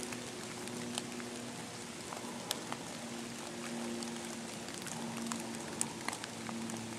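Light rain: a steady hiss with scattered sharp drop ticks, over a faint steady hum.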